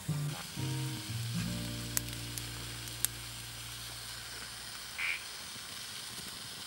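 Wood campfire burning with a steady hiss and a few sharp pops, under soft background music whose low held note fades out about halfway through.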